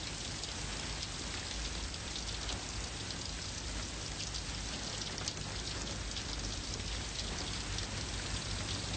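Steady rain falling, with fine drip ticks and a low steady hum underneath.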